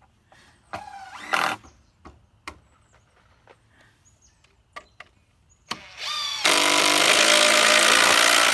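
Power drill-driver driving screws into wooden rafters: a short rising whine about a second in, then near the end it spins up again into about two seconds of loud, steady driving that stops abruptly, with scattered knocks of wood and tools in between.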